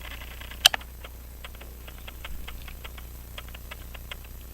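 A single sharp metallic click as the mainspring barrel cover is pressed and snaps into its seat, followed by faint, fairly even ticking at about five ticks a second.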